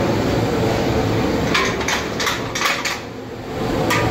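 Kitchen work: a handful of sharp knocks and clanks, as of metal pots and utensils, over a steady low hum, most of them bunched in the middle with one more near the end.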